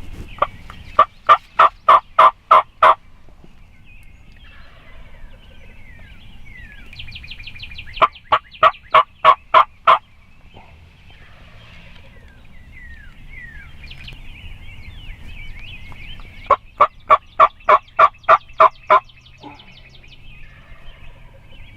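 Wild turkey hen yelping: three series of evenly spaced yelps, each lasting about two seconds, at roughly three to four notes a second. Small birds chirp faintly between the series.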